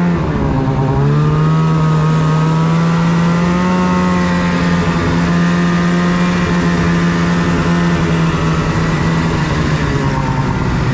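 Snowmobile engine running at speed. The revs dip and climb back about a second in, then hold steady.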